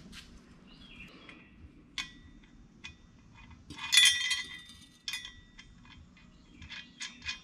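Scattered clicks and clinks of a metal winch-mount bracket and its bolts being handled on a workbench, with a louder metallic clatter about four seconds in that rings briefly.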